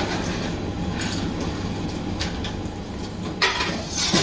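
Steady low rumble and hum of a busy indoor space, with a couple of brief clattering sounds near the end.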